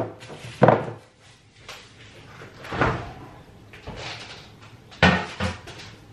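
Refrigerator door opened and shut while a plastic-wrapped bowl is put inside: a few separate knocks and thumps, with quieter handling sounds between them.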